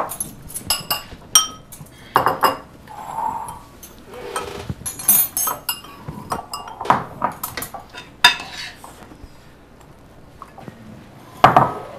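Spoons clinking against ceramic bowls as people eat, in short, irregular clicks.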